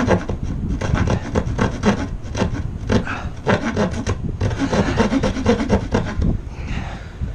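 A narrow-bladed hand saw (jab or keyhole type) cutting into a pine board by hand, in quick back-and-forth rasping strokes of the teeth through the wood. The strokes let up near the end.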